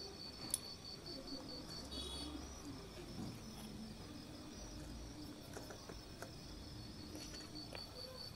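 A few faint clicks of small pebbles dropped into a glass light-bulb terrarium, the sharpest about half a second in, over a steady, high-pitched chirping that pulses evenly.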